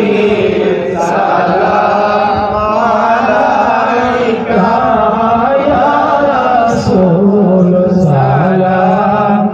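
A group of men's voices chanting a melodic Arabic salawat (salutation on the Prophet) together, through a microphone, holding long notes that bend slowly in pitch.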